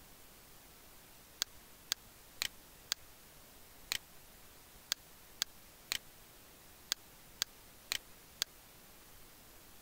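Computer mouse clicking, about a dozen sharp clicks spaced roughly half a second apart with a few pauses, over a faint hiss.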